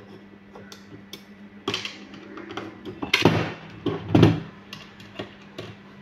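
Screwdriver work on a sheet-metal hard-disk bracket: repeated small metallic clicks and ticks as screws are turned and small screws clink. There are two louder knocks of the metal bracket being handled, about three and four seconds in.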